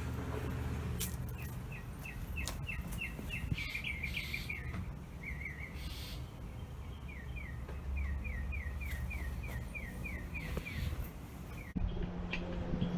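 A songbird singing two long trills of quick, repeated down-slurred chirps, about three to four a second, over a steady low rumble. Near the end the sound cuts abruptly to a steady low hum.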